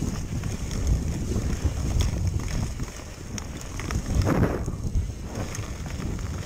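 Mountain bike descending a dirt trail at speed: wind buffeting the handlebar-mounted camera's microphone over the rolling rumble of the tyres, with frequent small rattles and knocks from the bike over bumps, and a louder rush about four seconds in.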